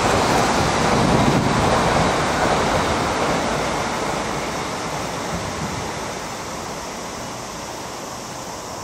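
Tokaido Shinkansen bullet train passing on an elevated viaduct: a steady rushing noise that fades gradually as the last cars go by.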